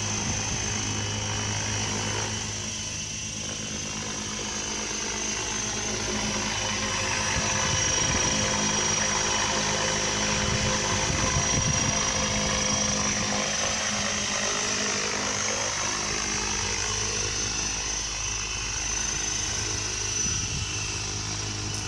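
Align T-Rex 700E electric RC helicopter in flight: its spinning rotor blades whir steadily under a high electric-motor whine. The sound grows a little louder midway as it flies overhead and eases near the end as it comes down.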